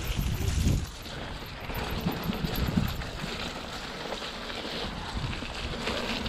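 Electric full-suspension mountain bike riding down a rough trail: tyres rolling over the ground with irregular knocks and rattles from the bike over bumps, and wind on the microphone.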